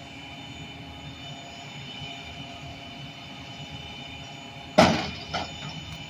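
Concrete mixer trucks running with a steady mechanical hum. About five seconds in there is a sudden loud burst of noise that dies away within half a second, then a smaller one.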